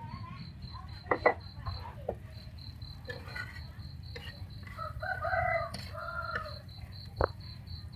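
A rooster crows once, about five seconds in, a call lasting about a second and a half. Under it runs a steady, evenly pulsing insect chirp, and a ceramic plate clinks sharply twice about a second in and once more near the end.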